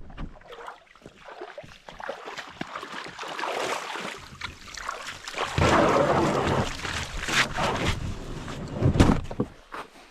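Kayak paddling: the paddle blades dip and splash in the water and water washes along the hull in uneven swells, with a sharp knock about nine seconds in.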